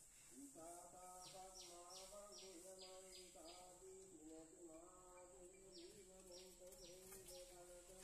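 Domestic pigeons cooing softly, low wavering coos that overlap without a break. Two runs of quick, high, falling chirps come in, one early and one past the middle.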